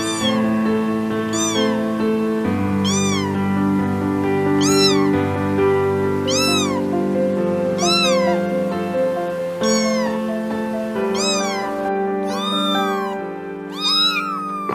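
A kitten meowing again and again, each call rising and falling in pitch, about one every second and a half, coming faster and overlapping near the end. Background music with held keyboard notes plays underneath.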